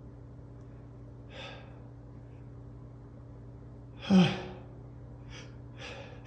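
A man's pre-sneeze gasps as he holds back a building sneeze: a soft breathy intake about a second and a half in, then a loud voiced gasp that falls in pitch about four seconds in, followed by a few short quick breaths.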